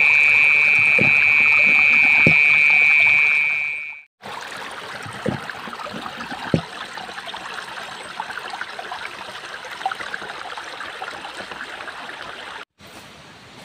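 A loud, steady high-pitched tone holds for about four seconds and cuts off. Then stream water trickles with scattered clicks, dropping quieter near the end.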